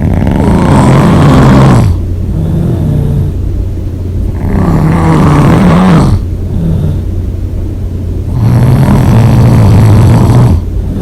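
A person snoring heavily through an open mouth: three loud snores, each lasting about two seconds and coming roughly four seconds apart, with quieter breathing between them.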